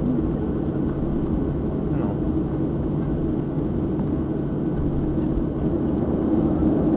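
Cabin noise of a Boeing 737-800 taxiing, heard at a window seat over the wing: a steady low rumble from its CFM56-7B turbofans and the airframe, with a thin high whine on top, growing a little louder near the end.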